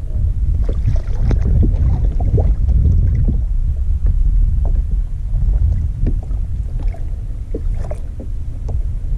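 Steady low wind rumble on the microphone, with scattered short clicks and knocks.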